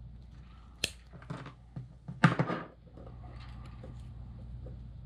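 Sparse small clicks and snaps from handling a swivel and monofilament fishing line: a sharp click about a second in and a louder cluster of clicks around the middle, over a faint steady hum.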